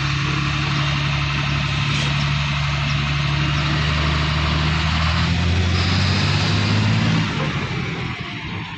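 Engine of a large vehicle running steadily as it drives, heard from inside the cab; its note rises a little past the middle and it eases off about seven seconds in.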